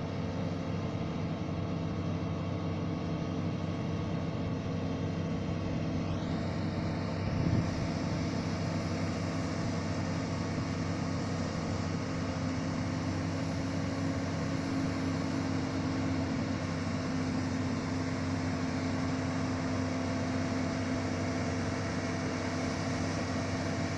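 Steady drone of a pontoon excavator's diesel engine running under load while driving a hydraulic slurry dredge pump. One brief knock about seven and a half seconds in.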